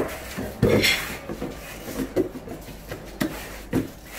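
Cardboard packaging being handled: a product box is lifted and slid out of its carton, with rubbing scrapes and dull knocks. The loudest knock comes just under a second in, with a few lighter ones later.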